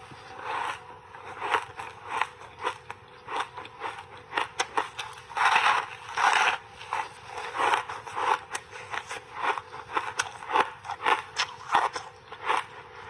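Crunchy block ice coated thickly in milk powder and matcha powder being bitten and chewed: a steady run of sharp crunches and crackles, with two louder, longer bites around the middle.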